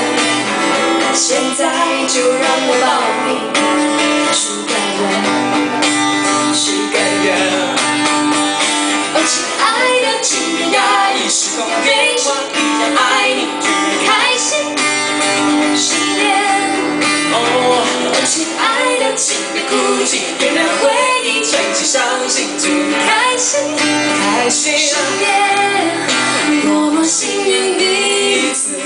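A woman singing a Mandarin pop song into a microphone, with strummed acoustic guitar accompaniment.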